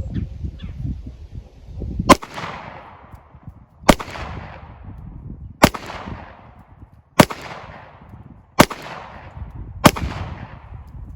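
Six shots from a Glock 43 9mm pistol firing hollow-point rounds, spaced about one and a half to two seconds apart. Each shot is followed by a fading echo.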